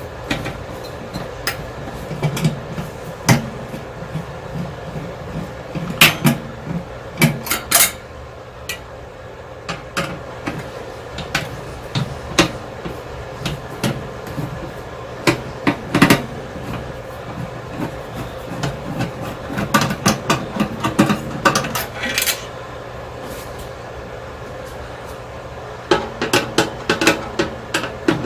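Irregular clicks and knocks of hand tools on the metal parts and panels of a microwave being taken apart, coming in bunches with short pauses between.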